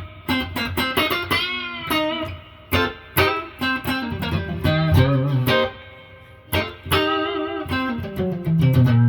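Electric guitar played through a valve amp with its spring reverb switched on: single picked notes and short phrases, some bent up in pitch, with a low note held about halfway through and again near the end.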